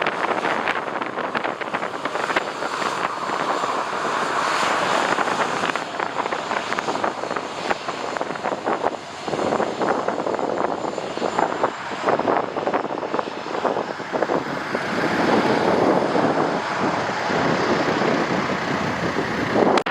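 Jet airliner engines running as a plane lands, a steady rush of engine noise, with gusty wind buffeting the microphone in irregular crackles throughout.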